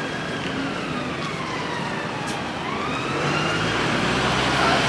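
Emergency vehicle siren wailing in a slow rise and fall, over street traffic. About three seconds in, a vehicle engine drone grows louder as traffic passes close by.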